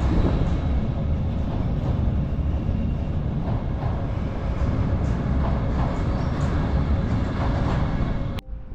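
Train rolling across a steel railway bridge: a loud, steady rumble with faint rail clatter. It cuts off abruptly near the end.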